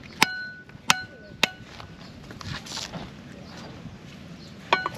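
Machete chopping into a green coconut to open it: three sharp chops in the first second and a half and one more near the end, each with a short metallic ring from the blade.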